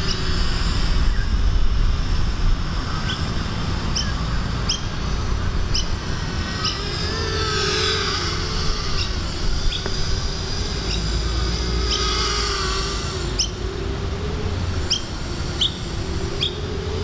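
Motors and propellers of a 210-size carbon-fibre FPV racing quadcopter buzzing in flight, the hum wavering up and down in pitch as the throttle changes. Short bird chirps break in now and then.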